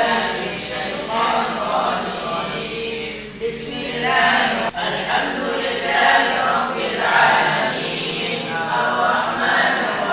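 A group of boys chanting an Arabic wirid (recited litany) together in unison, the massed voices swelling and falling in phrases about once a second.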